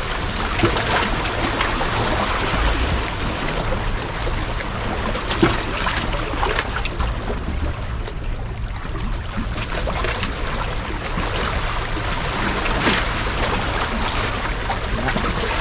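Seawater washing and lapping at the shore, a steady rushing sound, with a few faint clicks.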